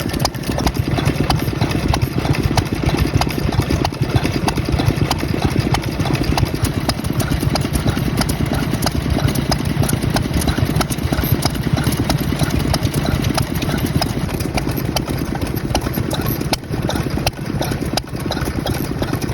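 Vintage Shin-Aichi Kigyo 'Gokoku' stationary engine running steadily, with a fast, even firing beat.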